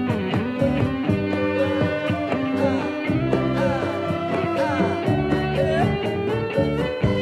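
Live band music: a keyboard playing a melody with sliding notes over drums, running steadily.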